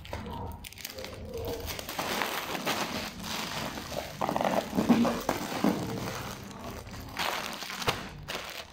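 Thin plastic bag crinkling and rustling as it is handled and bound with packing tape, with uneven crackles as the tape is pulled and pressed onto the plastic.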